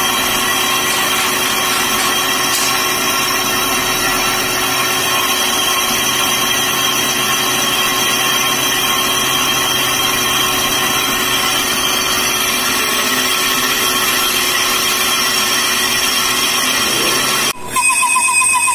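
Metal lathe running and boring out the inside of a motorcycle brake hub: a steady machine noise with a constant high tone. Near the end it cuts off abruptly and a different, wavering whine takes over.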